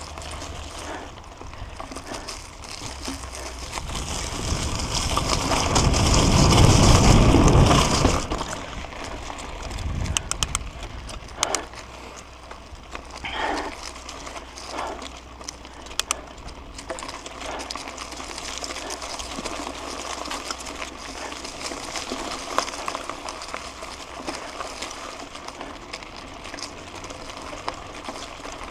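Mountain bike riding over a dirt and leaf-litter trail: tyres crunching and the bike rattling and clicking over bumps. A loud rushing noise swells and peaks about seven seconds in, then eases into a steadier rolling hiss.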